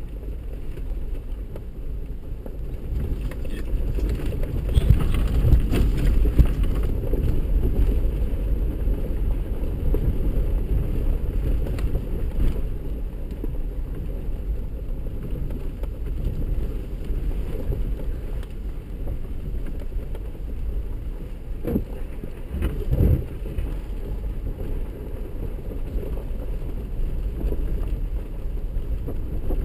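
Low, steady rumble of a 4x4 driving slowly over a rocky dirt trail, heard from inside the cab: engine and tyres on gravel, with a few knocks and jolts over rocks, the loudest about 23 seconds in.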